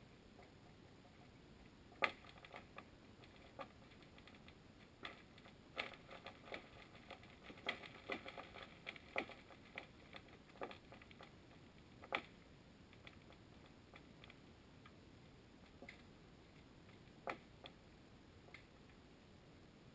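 Faint, irregular clicks and ticks over a low hiss, picked up by a camera underwater. The loudest comes about two seconds in, several come each second from about five to eleven seconds in, and a few single ticks follow.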